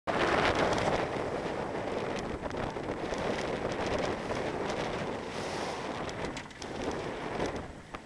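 Wind buffeting the microphone over the rush of open sea water around a boat, loudest in the first second and easing off toward the end, with scattered small ticks and slaps.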